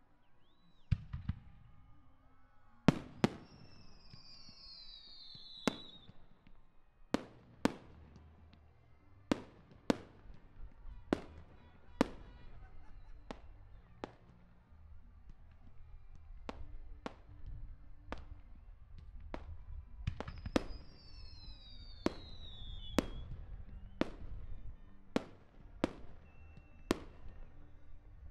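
Aerial fireworks going off: a long string of sharp bangs, about one a second, over a low rumble. Two long falling whistles sound, about three seconds in and again near twenty seconds.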